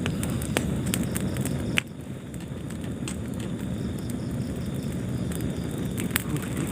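Wood fire burning in a fireplace: a steady low rumble of flames with scattered sharp crackles and pops. One louder pop comes a little under two seconds in.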